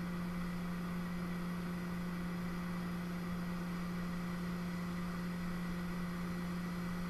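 A hot air rework station blowing on a circuit board, a steady low hum over an even hiss, while the pads are heated to melt the solder under a small surface-mount resistor.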